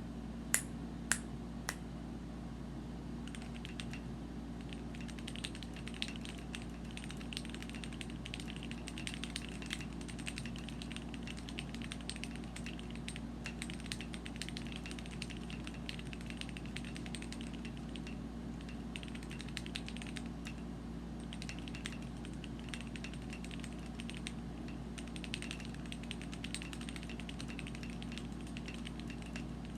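Typing on a Womier K61 mechanical keyboard with lubed and filmed Gateron Yellow linear switches: a steady patter of keystrokes, with three louder clacks in the first two seconds. A steady low hum sits underneath.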